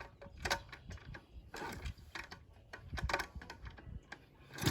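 Kick-start of a Honda Z50 minibike being worked, about three short mechanical clatters of the kick-start ratchet and the engine turning over without catching.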